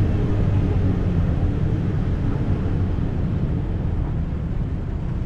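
Vehicle driving slowly: a steady low engine rumble with tyre and road noise, easing off slightly in the second half.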